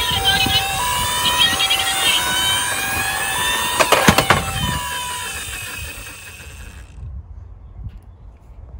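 Two-tone hi-lo ambulance siren, alternating between two pitches about every two-thirds of a second, over the rattle of a toy minicar rolling down a slope, with a couple of sharp knocks about four seconds in. The siren stops a little after five seconds and the rattle fades away.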